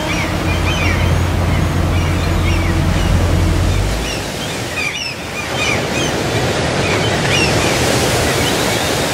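Ocean surf breaking on a beach: a steady wash of waves, with short high chirps scattered over it. A low rumble underneath stops about four seconds in.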